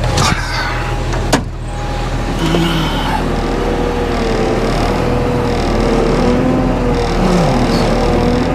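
Tracked dumper's diesel engine running steadily, with a steady whine over it. There is a knock at the start and a sharp click about a second and a half in.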